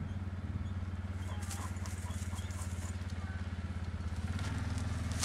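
Low, steady running of a vehicle engine at low revs, a pulsing hum that grows a little louder near the end as the vehicle draws nearer.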